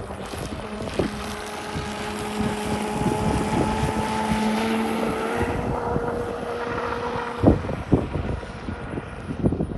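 Pro Boat Zelos 48 twin-motor brushless RC catamaran running at speed on 8S, a steady electric motor whine that edges up in pitch near the middle and drops away about three-quarters through. Wind buffets the microphone throughout, with a sharp thump just after the whine stops.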